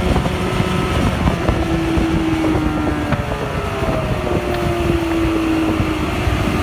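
Mercury 115 hp two-stroke outboard motor running at speed, a steady engine note that eases slightly lower in pitch, over rushing water and wind on the microphone.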